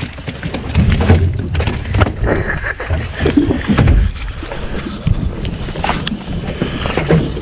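Wind rumbling on an action camera's microphone aboard a small boat at sea, with rustles and knocks from gloved hands and a jacket handling a fish.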